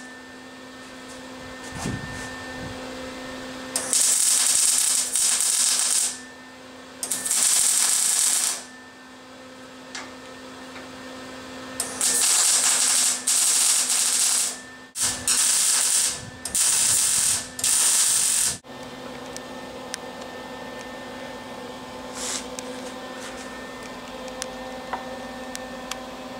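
Electric welder laying short welds on steel bar: about five bursts of crackling hiss, each one to two and a half seconds long, with a steady hum underneath.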